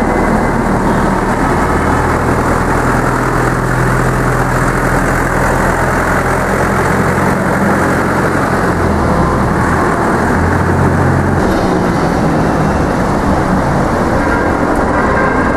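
Truck engine of a truck-mounted aerial work platform idling steadily with a loud, even rumble; its low hum shifts in pitch a couple of times in the second half.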